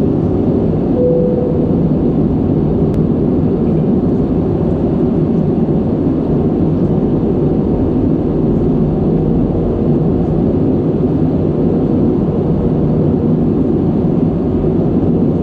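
Airbus A320 cabin noise in flight, heard from a window seat over the wing: the deep, steady rush of the engines and airflow, with a faint steady hum.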